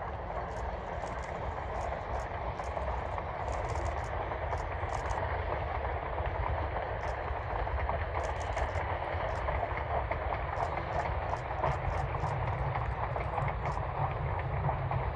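Narrow-gauge steam train running by: a steady rumble that grows louder over the first few seconds and then holds, with many short sharp clicks over it.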